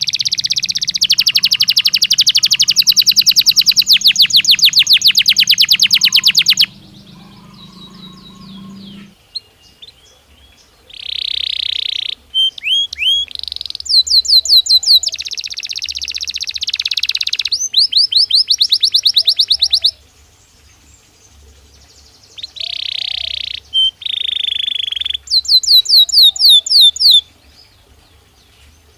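Belgian canary singing: phrases of very fast repeated notes in trills and rolls, with short pauses between them.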